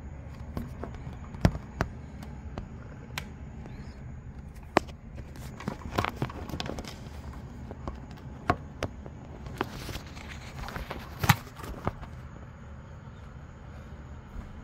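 Irregular sharp clicks and knocks of a phone being handled and moved while filming, over a low steady rumble.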